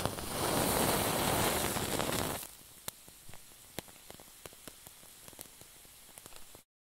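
A lighter flame set to a wick, which catches with a loud rushing hiss that drops away after about two and a half seconds. The wick's flame then burns quietly with scattered small crackles and pops, cutting off abruptly near the end.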